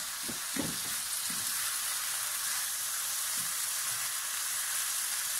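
Sliced bell peppers, onions and tomato paste sizzling steadily in a frying pan over high heat, stirred with a spatula, with a few brief scrapes in the first second or so.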